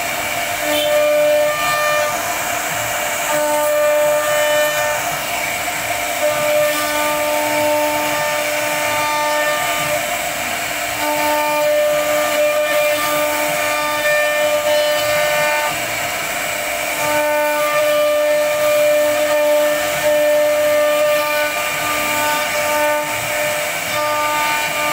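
CNC router spindle running at a steady high pitch while its bit carves a relief pattern into a wooden panel. The whine's overtones swell and fade every second or two as the cut loads and unloads, over a steady hiss of the bit chipping wood.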